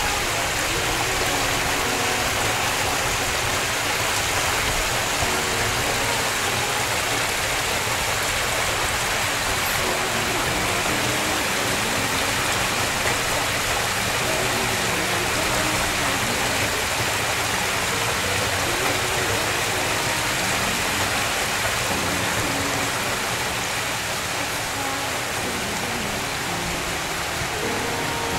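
Water from a backyard pool's boulder waterfall and spa spillover pouring and splashing into the pool, a steady rushing splash.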